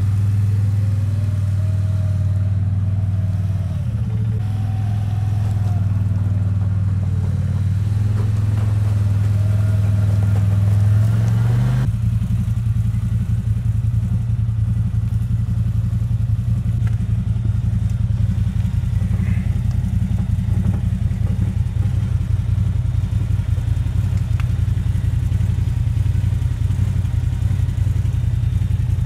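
CFMOTO ZForce 800 EX side-by-side's V-twin engine running at low speed, with a faint whine that rises and falls. About twelve seconds in it changes abruptly to the engine idling steadily close by.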